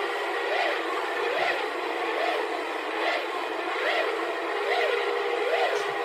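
Emergency Alert System-style alarm: a wailing siren tone that sweeps up and down about once every 0.8 seconds over a steady droning tone.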